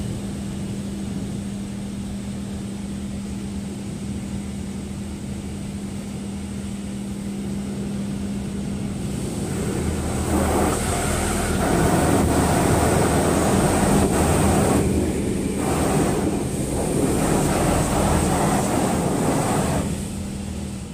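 Automatic car wash heard from inside the car's cabin: a steady machinery hum under a rushing wash, which grows louder from about ten seconds in as water sheets over the windshield and air blasts the glass.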